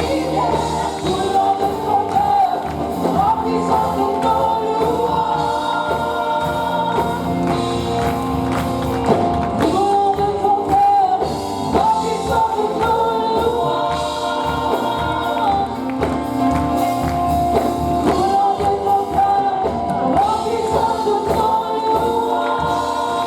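Live gospel worship song: voices singing a melody over steady instrumental accompaniment.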